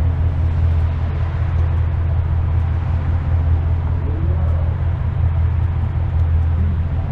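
2025 Ford Mustang GT's 5.0-litre V8 cruising at a steady speed: an even, low exhaust drone with road and tyre noise, no revving.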